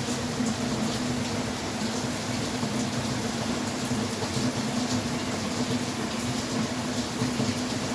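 Rain falling steadily, an even hiss with a low steady hum beneath it.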